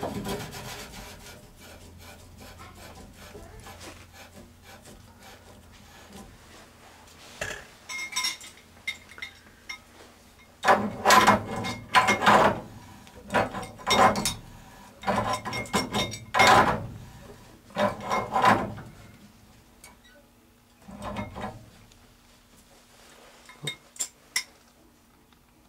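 Threaded gas pipe fittings being turned tight with a pipe wrench: quiet rubbing and scraping at first, then about halfway through a run of rasping metal-on-metal strokes, roughly one a second, followed by a few light clicks.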